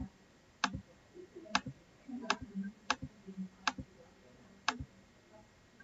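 Computer mouse clicking, about seven sharp single clicks at slightly uneven spacing of roughly three-quarters of a second, as the playback is skipped forward.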